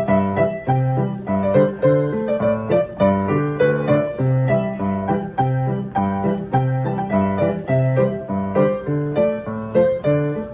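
Solo piano playing an old Taiwanese popular song: a melody over a steady, evenly repeating left-hand accompaniment.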